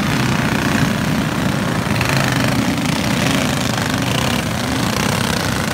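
Several go-kart engines running together, heard as a loud, steady blend of engine noise with no single engine standing out.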